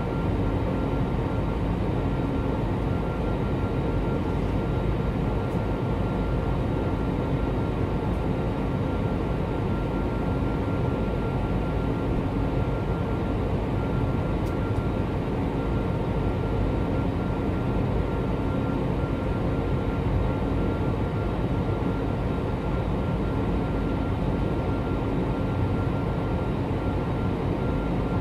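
Steady jet airliner cabin noise in flight: an even rush of engine and airflow noise heard inside the cabin, with a thin steady tone above it.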